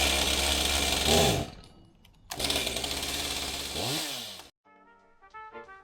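Chainsaw running at full throttle, revving down about a second in, revving up again, then cutting off sudden. Music with brass comes in near the end.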